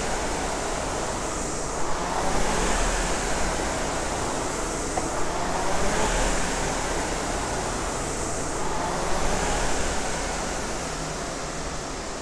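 Concept2 rowing machine's air flywheel whooshing as it is rowed, swelling and fading with each stroke every few seconds. The strokes are taken with legs and arms only, without body swing.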